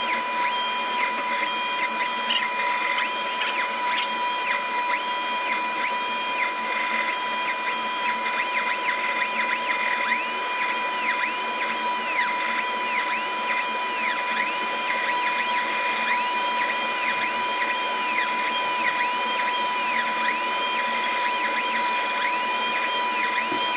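Glowforge Pro laser cutter running a cut in acrylic: a steady fan whir with fixed tones, under short whines that rise and fall again and again as the laser head traces the curved shapes.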